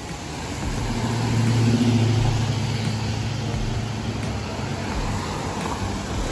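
A car running: a steady low engine hum with road noise, getting louder over the first two seconds and then holding steady.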